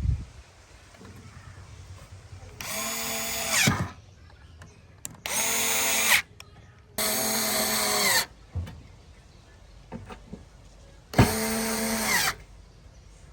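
Power drill run in four short bursts of about a second each, each a steady whir that winds down in pitch as the trigger is released. A sharp knock comes right at the start, with light handling clatter between the bursts.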